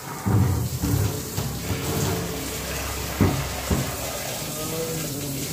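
Water running from a wall tap and splashing onto a cement floor, with a few knocks as plastic buckets are moved about.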